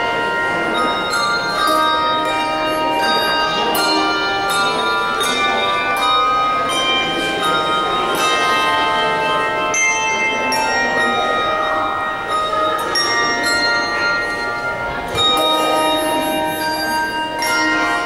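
A handbell choir ringing a piece of music: many handbells struck one after another in overlapping notes that ring on and blend.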